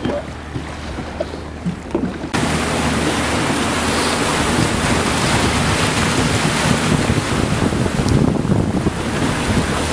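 A boat engine runs steadily over wind and water noise. About two seconds in, a loud rushing of wind on the microphone cuts in abruptly and stays.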